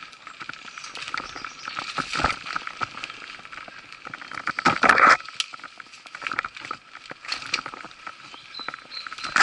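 Mountain bike riding over dirt singletrack: tyre noise on the dirt with rattles and knocks from the bike over bumps, the loudest jolt about five seconds in, over a steady high hum.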